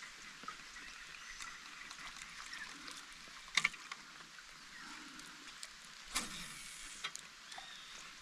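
Faint river and forest background heard from a kayak on the water, broken by two short sharp sounds, the louder about three and a half seconds in and another about six seconds in.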